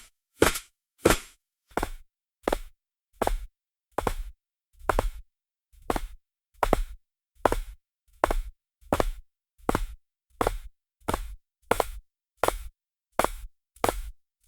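High-heeled shoes walking on a marble floor: even, sharp heel clicks at about one and a half steps a second, each with a brief ring.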